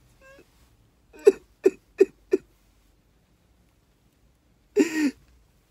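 A man crying hard: a faint whimper, then four quick catching sobs about a third of a second apart, and near the end one longer, louder sob.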